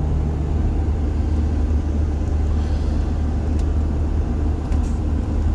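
Diesel engine of a Case IH 7088 combine running at a steady speed while the machine drives and turns, a constant low hum.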